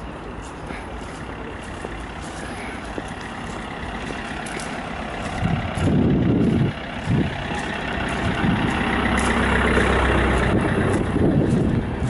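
A small utility truck's engine and tyres growing louder as it drives up close and passes, with a loud low rumble about halfway through.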